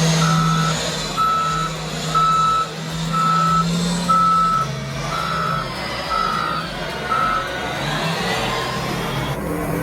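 Caterpillar 990 wheel loader backing up: its back-up alarm beeps about once a second, some eight beeps, over the steady running of its diesel engine. The beeping stops a couple of seconds before the end.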